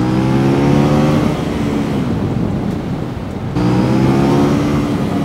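CFMoto 800NK's 799cc parallel-twin engine accelerating hard, its note climbing in pitch. About a second in the note drops away into the rush of wind, then the revs climb again from about three and a half seconds and fall off near the end.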